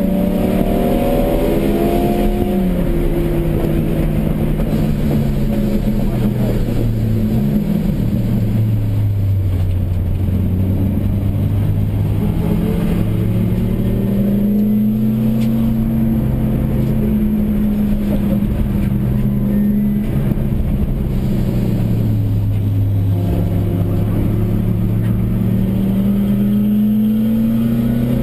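1992 Nissan Sentra SE-R's 2.0-litre four-cylinder engine, heard from inside the cabin while lapping a race track. The engine note falls as the car slows for a corner, drops suddenly about seven seconds in, holds low, then climbs steadily near the end as the car accelerates out.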